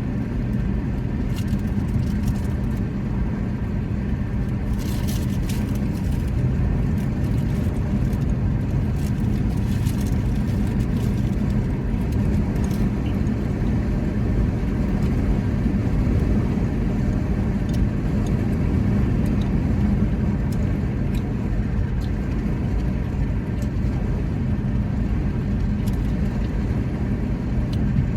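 Steady low rumble of a running car, with a few faint clicks.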